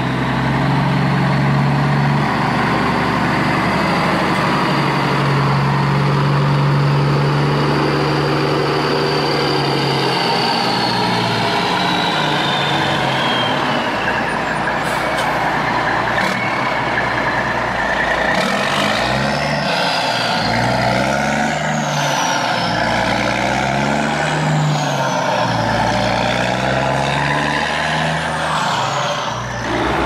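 Heavy truck engine running steadily, then rising and falling in pitch again and again in the second half as it revs.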